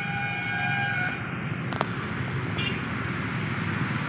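Steady low mechanical rumble under outdoor background noise. A faint held tone fades out about a second in, and there is a single sharp click a little before two seconds.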